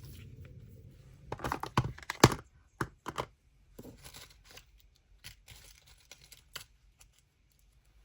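Rummaging in a small tub of paper ephemera: paper rustling and crinkling with handling knocks, loudest as a quick cluster of clicks about two seconds in, then lighter, scattered rustles.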